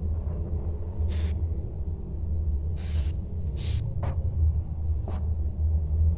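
A steady low hum with a few short hissing breaths, about one, three and nearly four seconds in.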